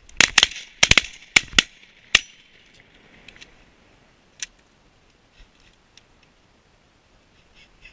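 A rapid volley from several shotguns: about eight loud shots in the first two seconds, some only a fraction of a second apart. A few faint clicks follow.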